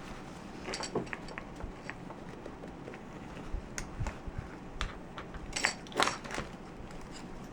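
Scattered small clicks and taps of hand tools and small parts being handled on a disassembled camera, with two louder clacks about two-thirds of the way through.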